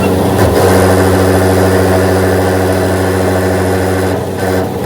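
A motor or engine running steadily with a low hum, easing off near the end.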